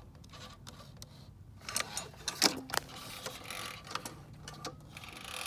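Irregular metallic clicks and knocks from hands working on a small single-cylinder engine, with no engine running.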